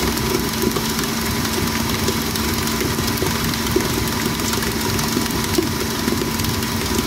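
Planetary stand mixer's motor running steadily at speed 6, a constant hum, as it kneads a 100%-hydration sourdough starter (licoli) that is almost fully developed, with the wet dough slapping lightly around the steel bowl.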